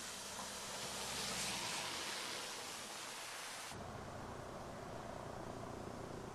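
A car driving past on a wet, mud-covered road, its tyres hissing through the water, swelling about a second in. Then an abrupt cut to a steady rushing noise with a low rumble.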